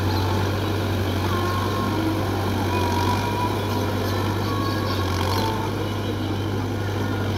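Tractor diesel engine running steadily under load as it drags a cultivator through a flooded rice paddy during puddling, with a steady low hum that eases off slightly about two-thirds of the way through.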